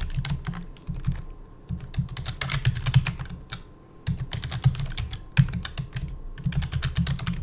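Typing on a computer keyboard: quick runs of key clicks, with a short pause a little past the middle before the typing resumes.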